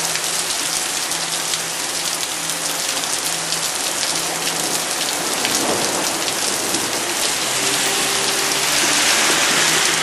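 Heavy rain pouring down steadily, growing louder near the end.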